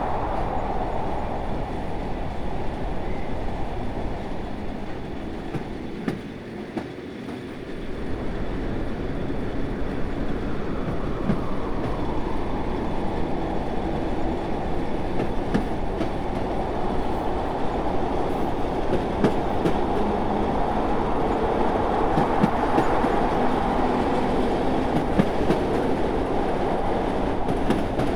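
A train running on rails, a steady rumble of wheels and carriage with scattered faint clicks. The sound dips and thins about six seconds in, then builds back up within a couple of seconds.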